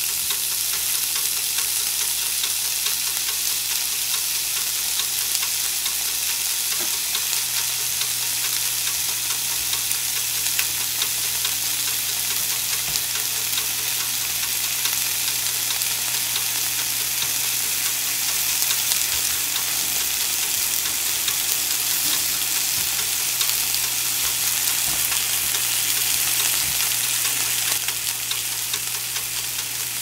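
Buckboard bacon frying in a cast iron skillet: a steady, even sizzle that eases slightly near the end.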